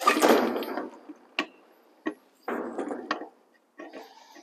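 An adjustable wrench turns a Teflon-taped brass air fitting one more turn into the port of an air brake chamber, to set which way the fitting points. There is a scraping creak at the start, then a few sharp metal clicks and knocks from the wrench and fitting.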